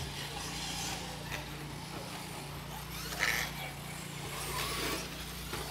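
Radio-controlled off-road race cars running on a dirt track, heard from trackside as a steady haze of motor whine and tyre noise over a low steady hum, with one brief sharp sound a little past three seconds in.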